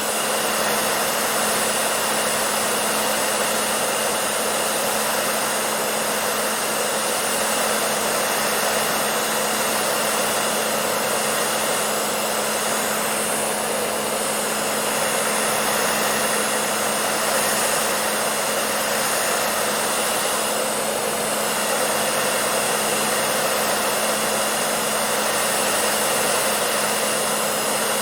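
Hair dryer running steadily: an even rushing blow of air with a constant motor hum and whine underneath.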